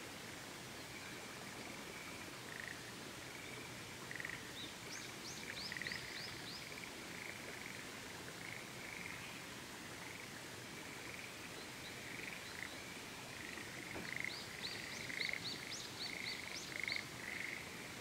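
A frog chorus: a steady run of short croaking pulses. Over it, a bird twice sings a quick series of high, sharp notes, the second and louder series near the end. A steady faint hiss lies beneath.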